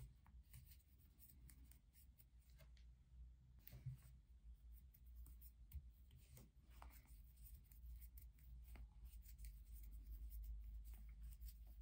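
Near silence: faint soft scratching and small ticks of a metal crochet hook drawing cotton twine through stitches, over a low steady room hum.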